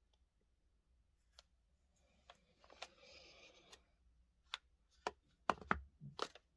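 Faint handling noise from a smartphone being touched and moved: light clicks and taps, several close together near the end, with a soft rustle about two to four seconds in.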